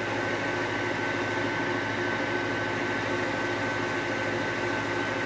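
Wood lathe running steadily, a motor hum with a steady high whine, spinning a turned fir tool handle during wax finishing.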